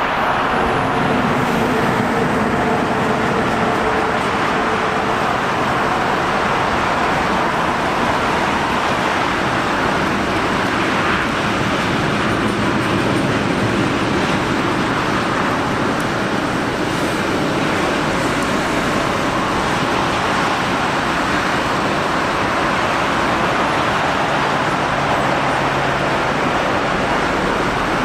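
Steady, continuous vehicle noise that stays at an even loudness throughout, with a faint hum in it.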